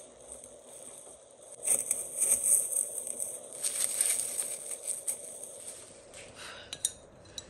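Clear plastic wrapping crinkling and rustling as a ceramic spoon rest is unwrapped. It is busiest from about two to five seconds in, and a few light clicks and taps follow near the end.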